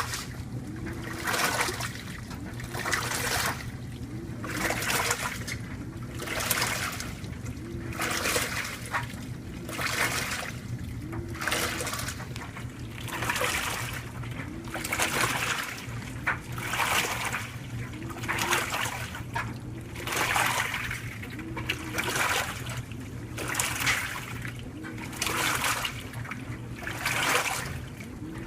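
2012 LG top-load washer agitating a load of whites in its wash: water splashing and sloshing in regular surges about once a second, with a short motor whir on each stroke.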